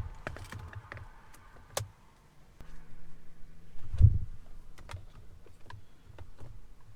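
Scattered sharp clicks and light knocks from handling things, with one louder dull thump about four seconds in and a brief low hum just before it.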